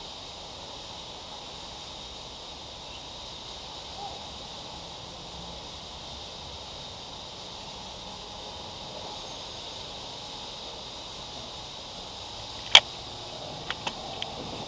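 Steady hum of downtown street traffic heard from a bicycle stopped at an intersection. Near the end comes one sharp, loud click, followed a second later by a few lighter clicks.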